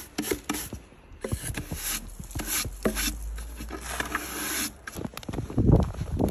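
Handling noises: irregular rustling and scraping with scattered clicks, and a few heavier knocks near the end.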